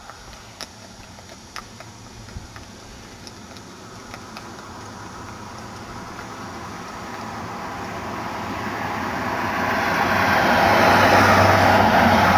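A motor vehicle approaching: a broad engine-and-road noise with a low hum grows steadily louder over several seconds, after a few faint clicks at the start.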